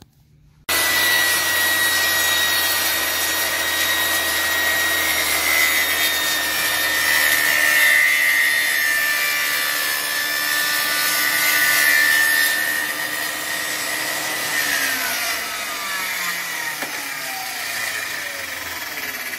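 Ryobi 10-inch table saw starting up about a second in and ripping through particle board, louder as the board is fed through the blade, then switched off and winding down with a falling pitch near the end.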